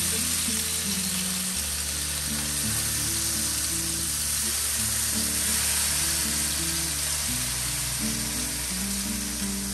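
Drops of water sizzling steadily on the hot stainless-steel plate of a Dyna-Living electric griddle, a water-drop test showing the plate is very hot. Low background music plays underneath.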